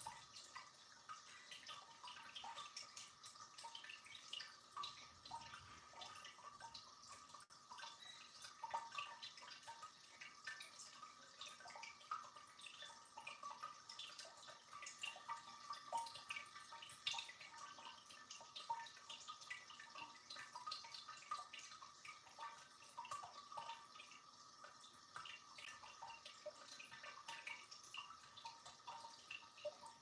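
Tabletop ceramic cascading fountain, faint: water trickling from one glazed pot down into the next, with a steady patter of small drips and splashes.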